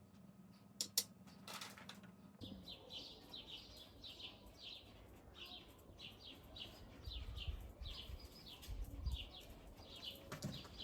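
A few sharp knocks in the first two seconds, then small birds chirping, many short high calls repeated over a low rumble.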